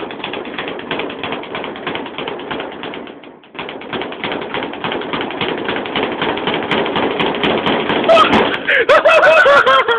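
Speed bag being punched in a fast, steady rattle of strikes against the rebound board, broken by a short pause about three and a half seconds in. Near the end a voice calls out in a string of short shouts over the punching.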